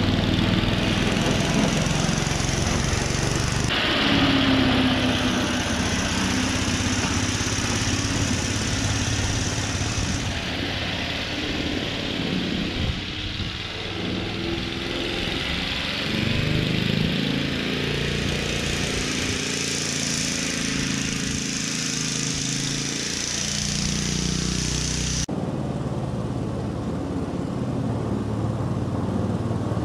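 Ransomes Marquis cylinder lawn mower's petrol engine running steadily while mowing, its pitch wavering as it works. The sound changes abruptly twice, about four seconds in and near the end.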